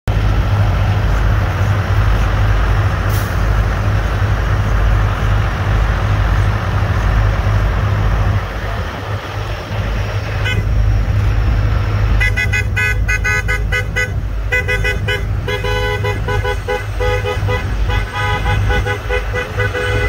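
Vehicle horns honking again and again, starting a little past halfway, over a steady low rumble and traffic noise.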